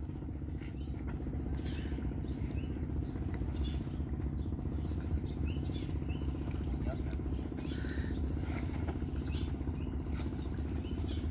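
An engine running steadily at a low, even idle, with faint short high chirps of birds or insects over it.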